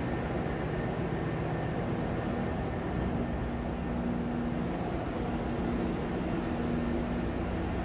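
A ship's engine-room machinery running: a steady, unbroken drone with a few low hums held over it.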